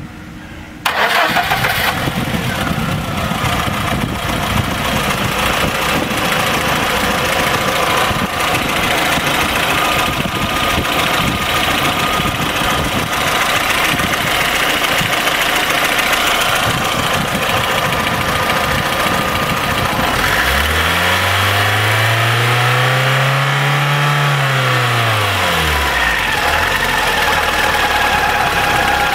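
Car engine starting about a second in and running with a whistle from under the hood. About twenty seconds in it is revved up and back down, the whistle rising and falling in pitch along with the engine.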